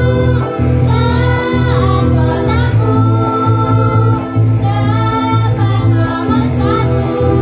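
Two young girls singing a jingle into microphones, backed by a live band with electric guitars, amplified through stage speakers.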